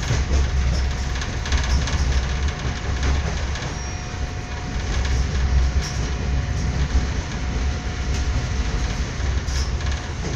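Passenger train running along the track, heard from inside the carriage: a steady low rumble with the occasional click of the wheels.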